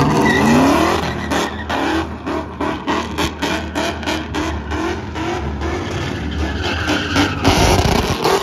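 Chevrolet Silverado pickup's engine revving hard as it spins donuts. The revs climb in the first second, then pulse rapidly up and down.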